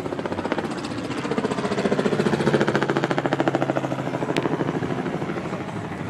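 A motor running with a rapid, even chopping beat that swells louder in the middle, with one sharp click a little past four seconds in.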